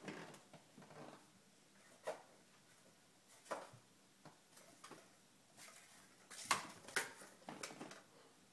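Himalayan kittens playing on a wooden floor: scattered light taps, clicks and scuffles of paws and bodies on the boards, a few sharper knocks about two thirds of the way in.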